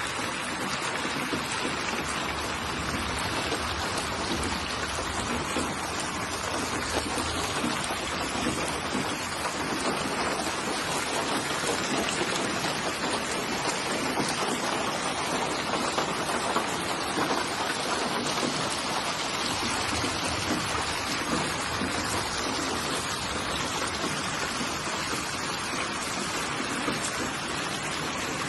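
Steady rain falling, a dense, even patter with no thunder or breaks.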